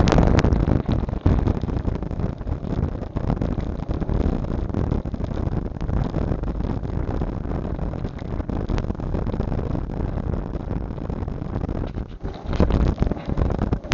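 Wind buffeting the built-in microphone of a Proscan HD 720P action camera on the move, with many irregular knocks and rattles from the camera and its mount jolting over a bumpy path.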